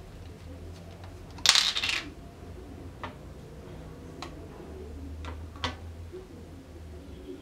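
Plastic screw-cap lab tube being handled: a short clatter about a second and a half in as its cap is set down on the bench, then a few light plastic clicks.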